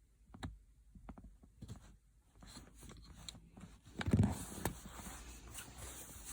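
Small clicks and scraping from the seat belt buckle's micro switch and housing being worked by hand as the switch is slid out, with a louder knock about four seconds in.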